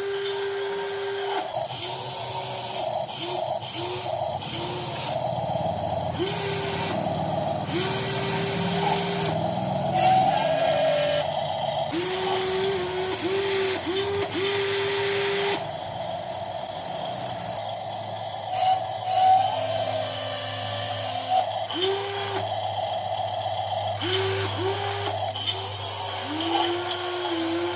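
Electric motors and metal gearboxes of radio-controlled model construction machines whining in many short stop-start runs as the controls are worked, with bursts of hissing, rasping noise between them.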